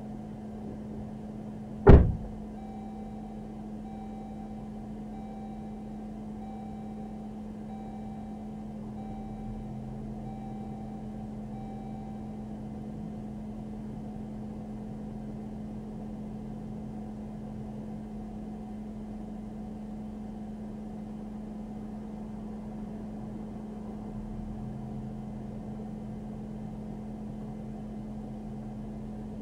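Steady hum inside an idling police patrol car, with a single sharp knock about two seconds in as a car door shuts. After it, a soft electronic chime repeats about once a second for some ten seconds, then stops.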